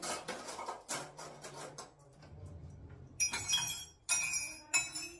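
Glassware clinking as it is handled and set down on a kitchen counter, with three sharp ringing clinks in the second half, after a stretch of scraping and rustling.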